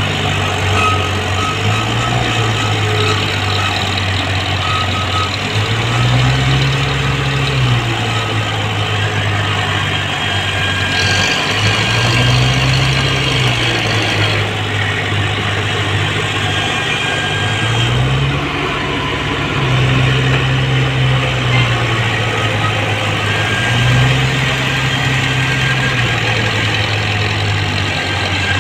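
Diesel farm tractor engines working hard as they pull heavily loaded sugarcane trailers through mud. The low engine note rises and falls back every five or six seconds as the engines come under load and ease off.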